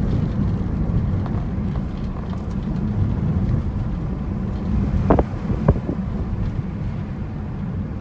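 Low rumble of a car driving along, heard from inside the cabin, with two short knocks a little past halfway.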